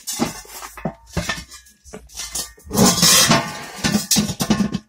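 Steel parts of a converted gas cylinder being handled, clanking and rattling metal on metal. There are scattered knocks and a loud run of clattering about three seconds in.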